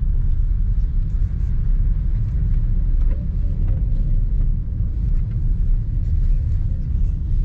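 Steady low rumble inside a car driving on a rain-soaked road, with rain on the windshield and the wipers sweeping.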